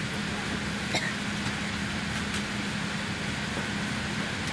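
Cabin noise inside a Boeing 787 airliner: a steady rush of air from the cabin ventilation with a steady low hum under it, and a light click about a second in.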